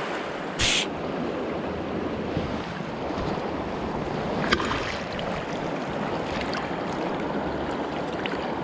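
Steady rushing of river current. A short burst of hiss comes about half a second in, and a single sharp click about four and a half seconds in.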